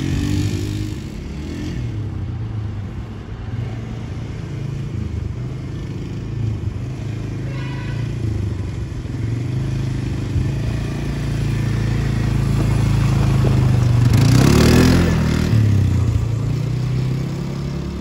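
Engine of a 330 cc quad bike (ATV) running as it is ridden around a dirt course, getting louder about fourteen seconds in with a quick rise and fall in pitch.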